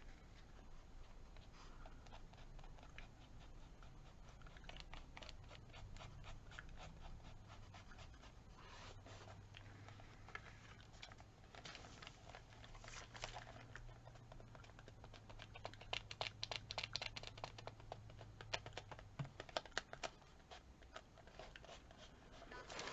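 Faint paper handling: small clicks, scratches and rustles as a glued strip of Japanese tissue paper is worked under and over an opened tear, with a busy run of quick ticks in the later part. A faint low hum starts a few seconds in and stops shortly before the end.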